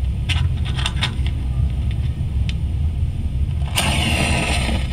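Sound effect of a match being struck and lit: a steady low rumble with a few light clicks, then a short hissing flare near the end.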